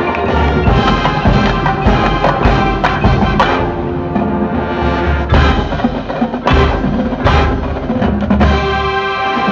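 Marching band playing, with brass and pitched tones over bass drums and sharp percussion hits.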